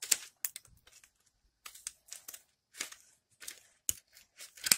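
Foil wrapper of a Pokémon trading-card booster pack crinkling as it is handled and pulled open, in short irregular crackles.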